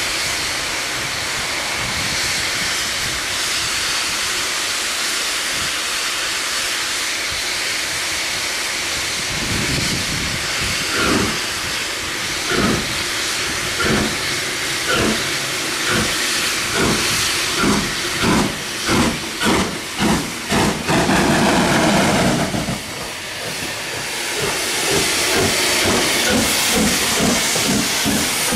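Steam locomotive, Southern Railway Schools class 4-4-0 No.925 'Cheltenham', with steam hissing steadily while it stands. About a third of the way in it starts away with slow, heavy exhaust beats that quicken to about two a second, and near the end they come faster still as the engine passes close by.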